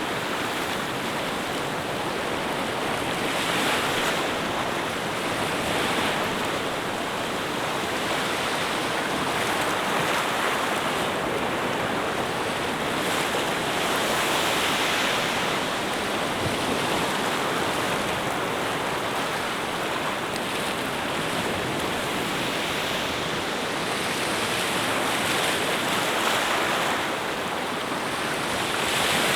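Ocean surf: a steady rush of waves that swells and eases every few seconds.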